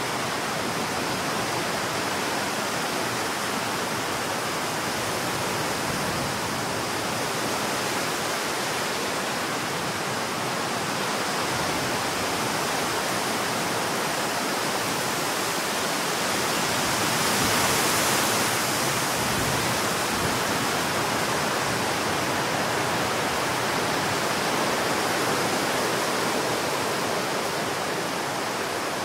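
Strong storm wind rushing through trees, a steady roar of noise. A gust swells about two-thirds of the way through, then eases back.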